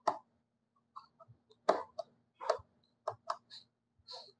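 Irregular small clicks and ticks of a precision screwdriver working the tiny screws on a phone's metal bracket, about nine clicks in four seconds, with a faint steady hum underneath.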